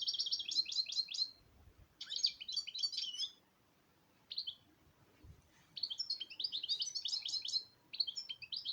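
A small songbird chirping in quick trilled phrases of about a second each, separated by short pauses.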